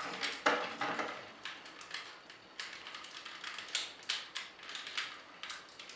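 Plastic action-figure parts clicking and knocking as the helmet is worked off a Power Rangers Samurai Megazord toy: a dozen or so irregular sharp clicks, the loudest about half a second in.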